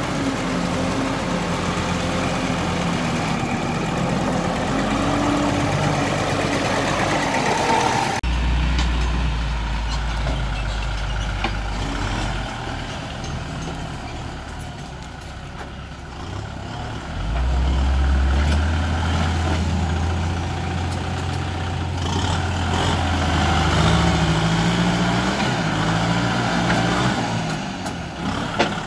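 Tractor engines running while working. First a small tractor churns through flooded mud. After a sudden change about eight seconds in, a Kubota diesel tractor is pushing soil with its blade: its engine settles into a low drone, eases off, then picks up again just past the middle.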